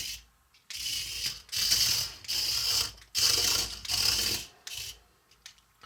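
HexBug Fire Ant robot toy's small motor and plastic gears whirring and ratcheting in about five short bursts of roughly half a second each as it is driven along, with a few light clicks near the end.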